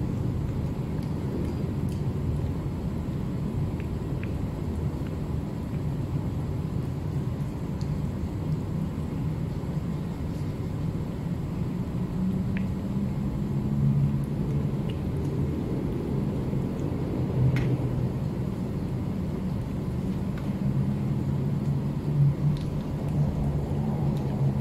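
Steady low machine hum, like a motor or engine running, swelling slightly at times, with a few faint ticks.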